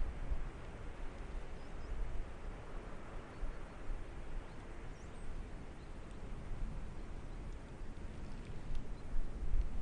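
Outdoor background noise: a steady low rumble with a few faint, short high chirps about halfway through and near the end.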